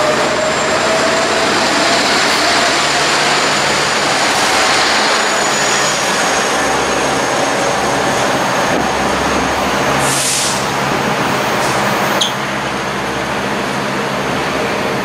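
Train passing close by: a loud, steady rush of wheels on rail with faint thin squealing tones. A short high hiss comes about ten seconds in, and a sharp click near the end, after which the sound eases slightly.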